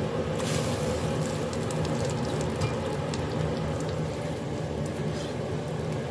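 Pot of meat boiling on a gas burner: a steady low rumble with faint bubbling crackle over it, and a short hiss about half a second in.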